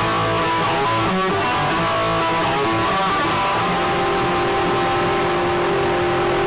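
Les Paul electric guitar played through a 1967 Fender Bassman tube amplifier turned all the way up with the bright switch on: a run of changing notes, then a note held ringing from about four seconds in.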